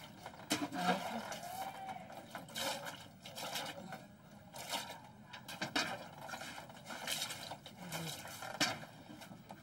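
Water splashing in a plastic basin and hands rubbing wet skin during a healer's cleansing bath, in short irregular bursts, with faint murmured voices now and then.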